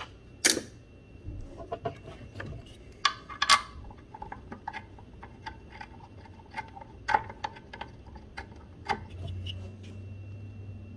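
Hand tools clicking and knocking on metal as bolts are fitted up under the car. There are a few sharper knocks and a run of lighter, regular clicks in between.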